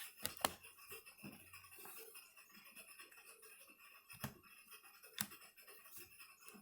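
Faint, scattered clicks and taps of laptop parts being handled, with three sharper knocks among them.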